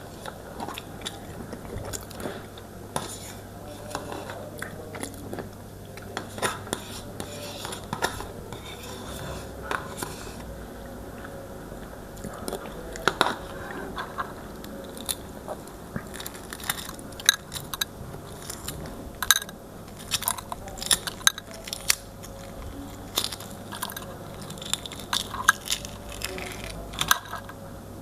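A person eating close to the microphone: chewing and biting, with many sharp clicks and crunches that come more often in the second half.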